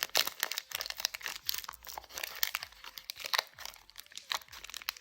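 Foil wrapper of a Pokémon trading-card booster pack crinkling and tearing as it is opened, with a run of irregular sharp crackles.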